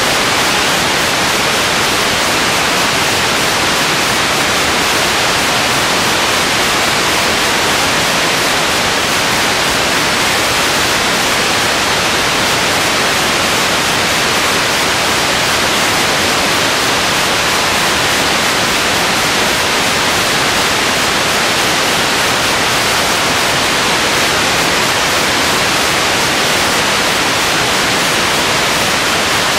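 Steady, even hiss of static with no other sound: the noise of an old recording or film transfer.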